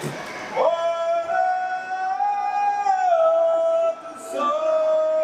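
A gondolier singing long, held notes that step up and down in pitch, with a short break about four seconds in.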